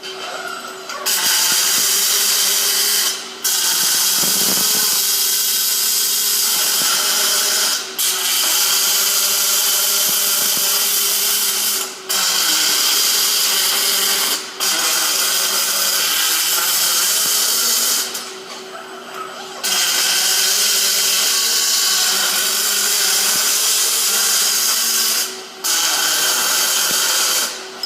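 MIG welding arc crackling steadily in runs of a few seconds each, broken by brief stops where the arc is cut, with a longer pause a little past halfway. A steady low hum runs underneath.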